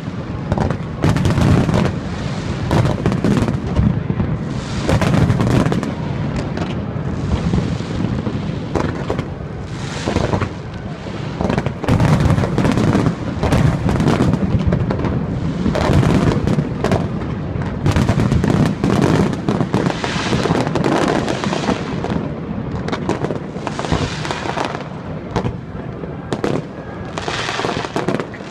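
Fireworks display: a dense, continuous barrage of shell bursts, booms and crackling, with a heavy low rumble throughout.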